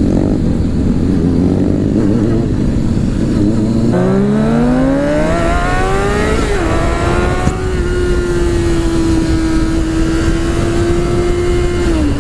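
Honda CBR600RR inline-four sport bike engine under heavy wind rush: about four seconds in it accelerates with a rising pitch, briefly dips, then holds a steady cruising note that drops slightly near the end.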